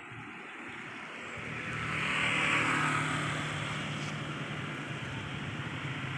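A passing motor vehicle's engine noise. It swells to its loudest two to three seconds in and then eases, over a steady low engine hum.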